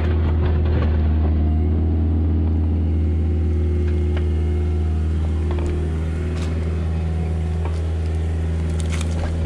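Kubota excavator's diesel engine running steadily with a deep hum while the bucket digs a trench, with scattered clicks and scrapes of wet clay and rock.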